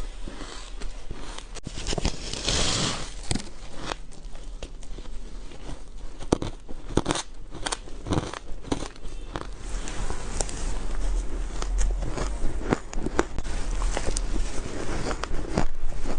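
Ice being bitten and crunched between the teeth: a run of irregular sharp cracks and crunches.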